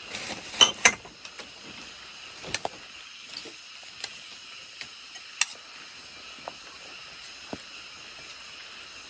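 Sparse, irregular clinks and taps of a spoon against a bowl as a spicy salad is mixed, over a steady background hum of crickets.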